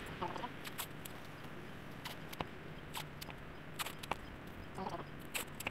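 Scattered light clicks and taps of hands handling things over a faint steady background, with two very brief faint pitched sounds, one just after the start and one near the end.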